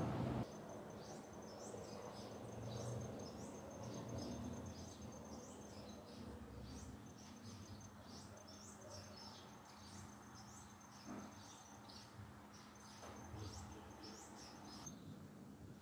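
Small birds chirping: many short, falling high notes scattered throughout, over a steady, pulsing high-pitched insect trill. A louder rush of noise cuts off suddenly about half a second in.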